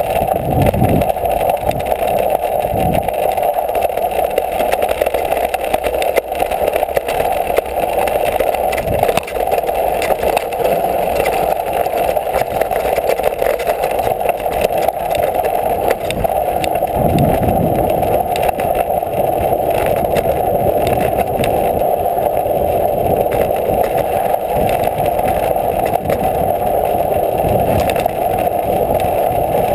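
Mountain bike rolling over a gravel and dirt trail, picked up by a handlebar-mounted camera: a steady rush of tyre and wind noise with irregular knocks and rattles from the rough ground.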